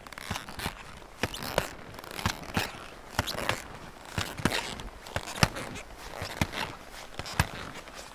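Footsteps crunching into snow, about one step a second, as someone climbs on foot.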